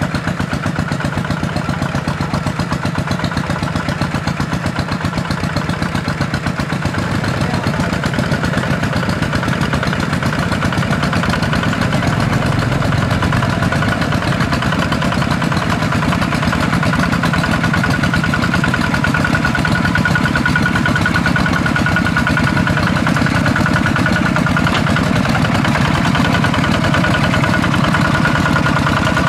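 Single-cylinder diesel engine of a two-wheel walking tractor running steadily with a rapid, even chug, gradually getting a little louder.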